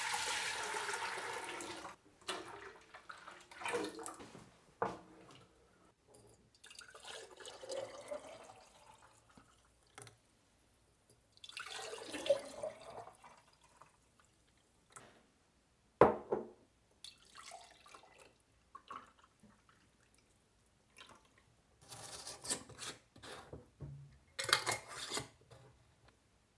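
Fresh juice being poured from jugs into a pot in several pours, a splashing, gurgling stream whose pitch shifts as each pour goes. Between the pours come light knocks of the containers being handled, with one sharp knock a little past halfway.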